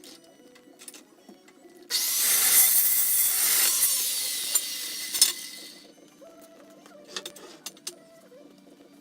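Carbide-tipped cold cut saw cutting through 14-gauge square steel tubing: one cut of about four seconds, starting about two seconds in, with a sharp clank near its end, then fading away.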